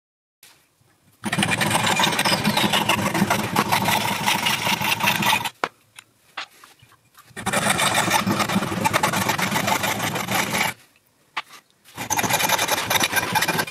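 Hacksaw cutting 15 mm copper pipe clamped in a small bench vise, played back sped up so the strokes run together into a fast rasping buzz. It comes in three stretches with short pauses between them.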